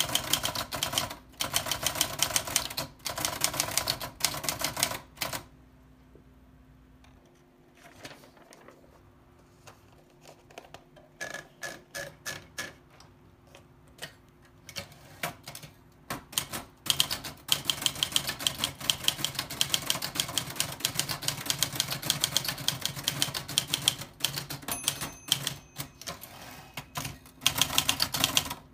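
Old typewriter being typed on: fast trains of sharp key strikes with short pauses between. About five seconds in the typing stops for a ten-second lull with only a few scattered keystrokes, then fast typing resumes and runs on.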